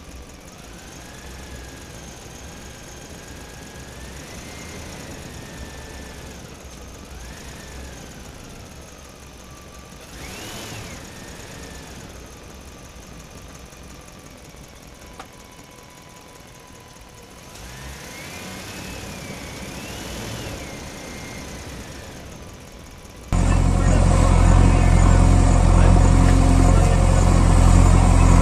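Faint engine sounds rise and fall in pitch over quiet outdoor background. About 23 seconds in, a loud, low, steady rumble starts suddenly, with crunching clicks of gravel near the end.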